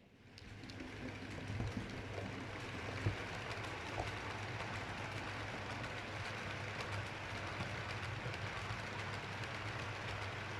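H0 model train running along the layout's track: a steady rolling noise with an electric motor hum and occasional faint clicks at rail joints. It builds up over the first second or two as the train approaches, then holds steady.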